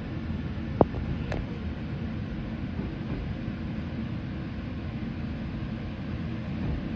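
Electric train on the Iida Line running: a steady low rumble, with a sharp click about a second in.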